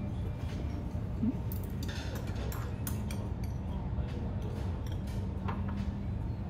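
Light clinks and taps of dishes and utensils being handled, a few scattered and some in quick clusters, over a steady low background hum.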